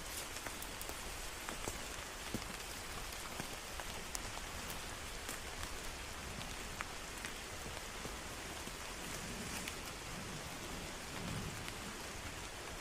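Steady rain falling, an even hiss with many scattered drips and ticks of drops hitting leaves and surfaces.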